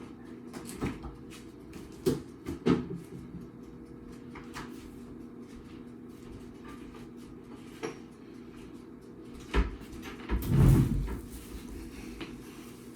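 Scattered knocks and clicks of things being handled, with a louder low thump and clatter about ten and a half seconds in, over a steady low hum.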